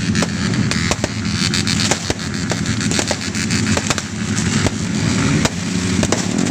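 Fireworks and firecrackers going off, with many sharp, irregular bangs and crackles over a steady low rumble.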